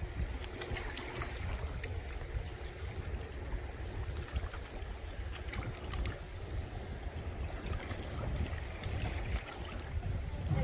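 Wind buffeting the microphone in a steady low rumble over the rush of the flooding Yellowstone River's fast brown water.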